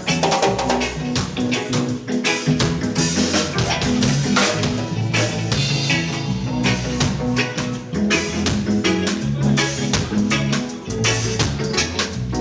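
Live band playing an instrumental passage with a drum kit keeping a steady beat over a moving bass line.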